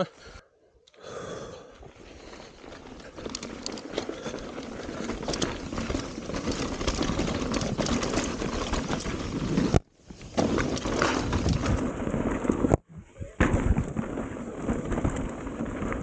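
Mountain bike ridden fast down a dirt trail, heard from a handlebar-level camera: wind rushing over the microphone and tyres rolling on dirt, with sharp knocks and rattles as the bike hits bumps. The sound cuts out briefly three times, about half a second in, about ten seconds in and near the end.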